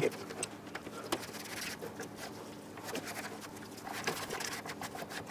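Light scattered clicks and rubbing as small moped parts are handled and cleaned by hand, over a faint steady hum.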